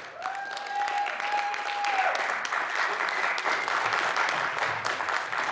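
Audience applauding after a song, a dense run of hand claps, with a steady held tone over the first two seconds.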